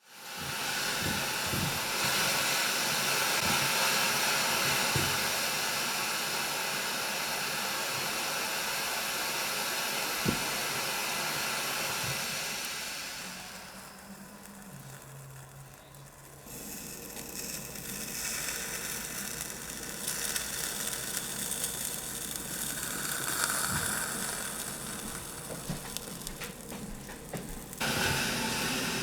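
Red-hot knife hissing and sizzling as it is pressed into Play-Doh, the moisture in the dough boiling off as steam. The hiss eases off about halfway through, then picks up again with small crackles.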